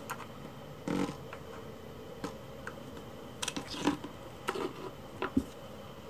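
Small plastic toiletry containers being handled and set down on a shelf: a scatter of light clicks and taps, busier in the second half.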